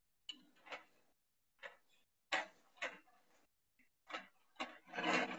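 Irregular short clicks and knocks, about ten of them, from a metal slotted spoon tapping and turning a croquette in the frying pan.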